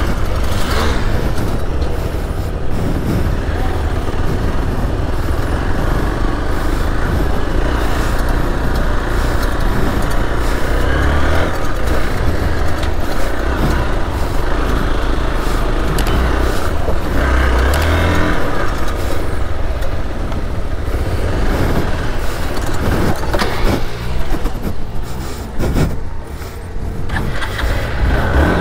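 Hero XPulse 200 4V motorcycle's single-cylinder engine running while ridden, its note rising and falling with the throttle.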